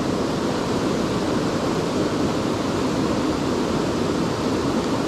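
Steady rush of a mountain stream running over rocks, with a small cascade pouring just upstream.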